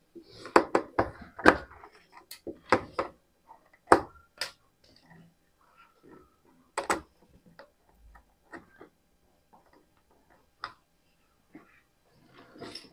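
Small screwdriver working the screw terminals of a plastic-cased automatic transfer switch: irregular clicks and scrapes as the terminal screws are loosened and the wires taken out.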